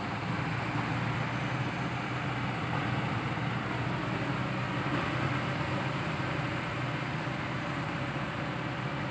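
Kobelco SK200-8 hydraulic excavator's diesel engine running steadily under working load as the boom and arm move.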